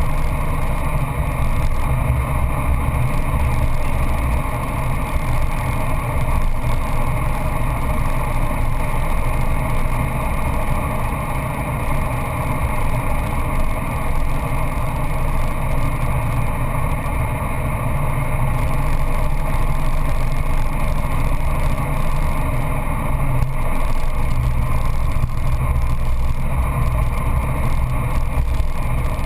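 Peugeot 206 GTI S16's 2.0-litre 16-valve four-cylinder engine pulling at speed, heard from inside the cabin together with road and wind noise. The engine note holds fairly steady throughout.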